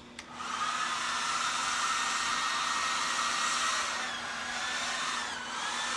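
Handheld hair dryer switched on and running, blowing out the baby powder packed into it. It is a steady rush of air with a whine whose pitch sags briefly and recovers near the end.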